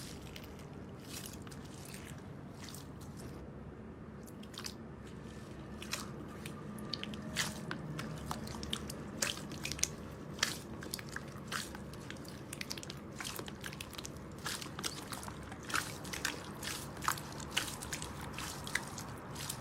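Slime being squeezed and worked by hand, giving irregular sticky clicks and crackles that come thicker from about six seconds in, over a steady low hum.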